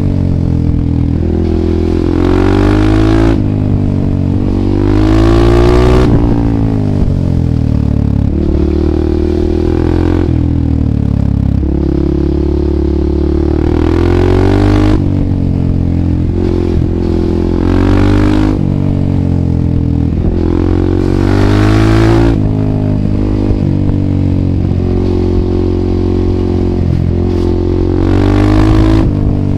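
Husqvarna 630 supermoto's single-cylinder four-stroke engine, breathing through FF By Fresco slip-on exhausts with the dB killer removed, repeatedly revving up and backing off, its pitch rising and falling every few seconds.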